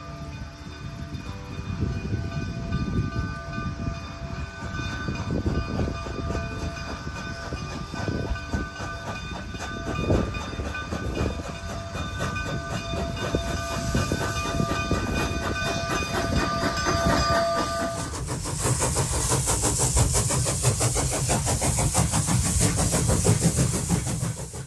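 Three-foot narrow-gauge steam locomotive approaching and drawing close with its train: a pulsing low rumble of exhaust and wheels that grows louder, with steady whistle-like tones over it. About 18 seconds in, a loud hissing rush takes over as the engine and coaches roll past.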